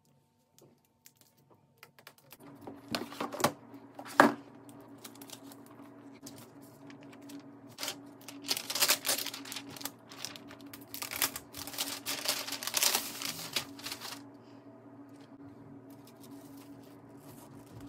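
Unboxing handling sounds of a laptop box and its packaging: a few sharp clicks and knocks, the loudest about four seconds in, then rustling and scraping of paper wrapping from about eight to fourteen seconds as the laptop is taken out, over a faint steady hum.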